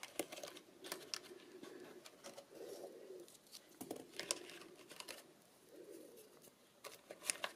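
A pigeon cooing faintly, a run of low coos repeating every second or so. Light clicks and paper rustling come from tealight candles in their metal cups being handled in a folded paper box, the sharpest click about seven seconds in.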